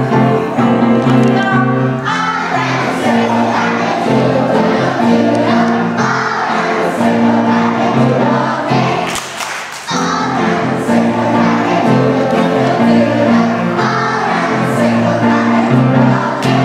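A group of young children singing a song together over a steady musical accompaniment, with a short break in the music about nine seconds in.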